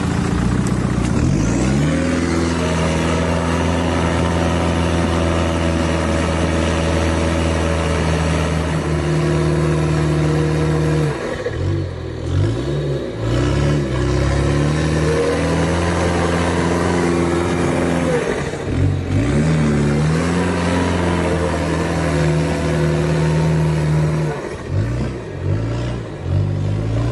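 Vehicle engine held at high revs under hard throttle, its pitch steady for long stretches. The revs drop and climb back twice, about eleven and nineteen seconds in, and rise and fall unevenly near the end.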